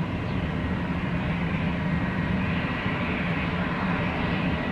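Small twin-engine business jet taxiing, its rear-mounted turbofans running at a steady low power, a broad even hum with a faint high whine on top.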